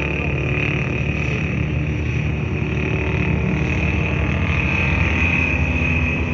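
Racing sidecar engines running at high revs around the circuit, heard from trackside as a steady drone.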